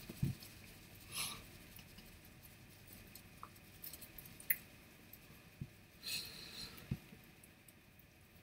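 Quiet small room with a few faint scattered clicks and two soft hissy rustles, one about a second in and one around six seconds.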